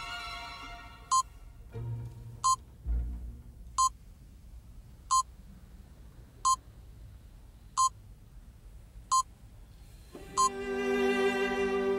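Quiz countdown-timer beep sound effect: eight short, identical beeps about 1.3 seconds apart, over faint background string music that swells up loudly near the end.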